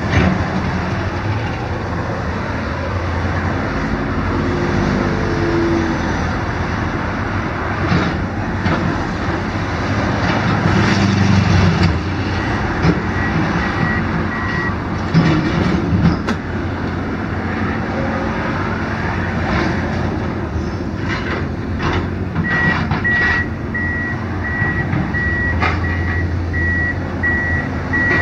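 XCMG crawler excavator's diesel engine running under steady road traffic, with knocks and crashes as block and timber debris comes down. A backup alarm beeps briefly about halfway through and again steadily through the last few seconds.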